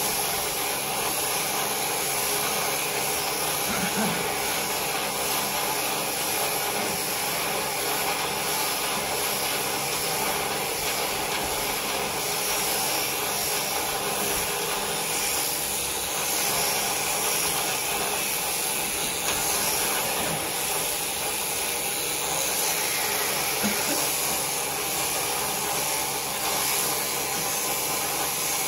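Electric sheep shears running steadily as they clip the fleece off a sheep.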